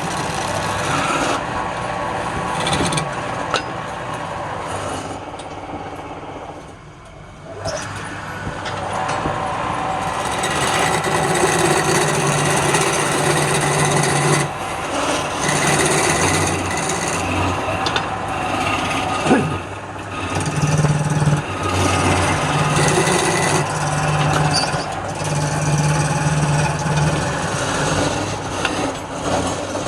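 Wood lathe running with a steady motor hum while a turning tool scrapes against the spinning wood. The sound drops off briefly about a quarter of the way in, then carries on.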